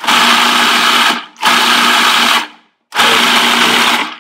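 Food processor pulsed in three bursts of about a second each, its motor whirring as the blade chops a fresh handful of greens with olive oil into pesto.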